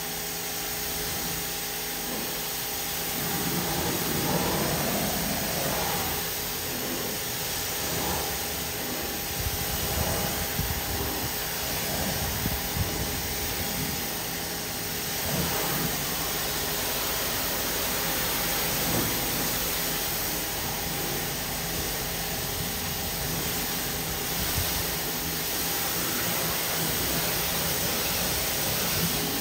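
Water spraying from a pressure-washer wand onto a pickup truck's paint in a final rinse with deionized water. A steady motor hum runs under the hiss, which surges unevenly as the spray moves over the panels.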